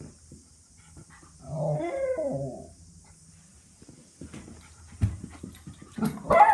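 Miniature schnauzer giving drawn-out, warbling excited barks: one about two seconds in and a louder one near the end, with light knocks and a thump in between.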